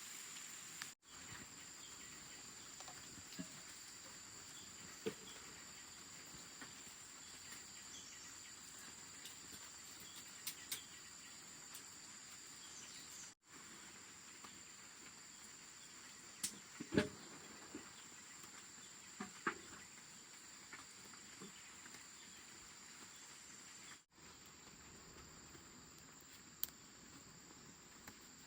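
Insects keeping up a steady high-pitched drone, with a few small scattered knocks and clicks. The sound breaks off for an instant three times.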